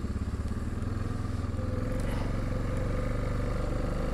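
Yamaha Kodiak 450 ATV's single-cylinder four-stroke engine running steadily under way, its note changing about two seconds in.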